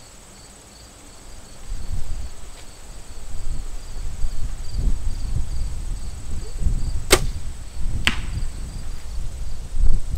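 Compound bow shot: the string releases with one sharp crack, and about a second later a fainter smack as the arrow strikes the target 60 yards off. Wind rumbles on the microphone, and crickets chirp faintly.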